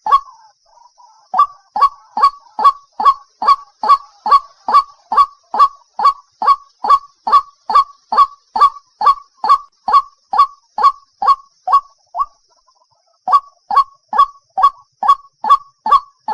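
Waterhen calling: a fast, even run of harsh, downward-dropping notes, about two and a half a second, breaking off briefly just after the start and again about twelve seconds in before resuming.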